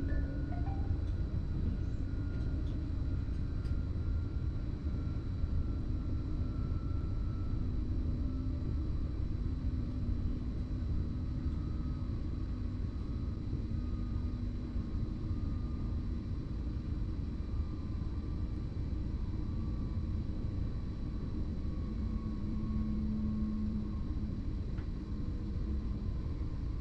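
BLS MUTZ RABe 515 double-deck electric multiple unit running along the line, heard from the driver's cab: a steady rumble of wheels on rail with a faint whine from the electric traction drive, slowly sinking in pitch.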